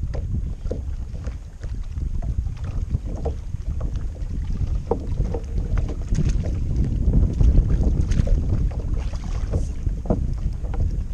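Wind buffeting the microphone as a steady low rumble, with small irregular slaps and ticks of water lapping against a plastic kayak hull.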